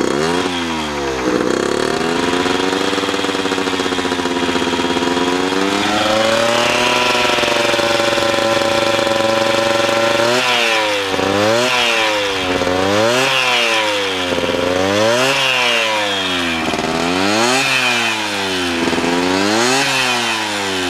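Tuned Piaggio Ciao 50 cc two-stroke moped engine on its first run, warming up through a Simonini expansion chamber exhaust, kept running on the throttle because it will not idle yet; it runs rich on an oversize main jet for break-in. The revs wander, hold high for a few seconds, then from about halfway drop and pick up again over and over, roughly every second and a half to two seconds.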